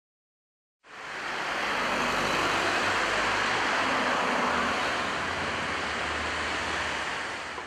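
Traffic noise on a city street: a steady wash of tyre and engine noise with a low rumble, cutting in suddenly about a second in.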